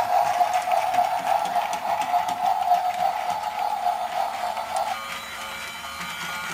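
Battery-powered toy train's small electric motor and gears whirring steadily as it runs around a plastic track. The whirr stops abruptly about five seconds in, and quieter music with held notes follows.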